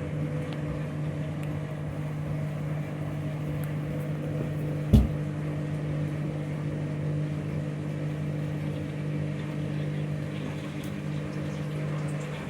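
Washing machine drain pump running with a steady hum as the machine drains between stages of the wash, with a single short knock about five seconds in.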